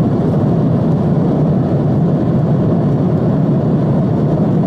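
Steady cabin noise of an Airbus A330 airliner at cruise, a loud even rumble of engine and airflow noise heard inside the passenger cabin.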